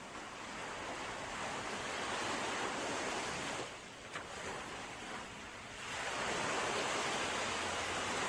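Sea waves breaking and washing on a shore, the surf swelling and ebbing; it dies down briefly in the middle, then a new wave builds.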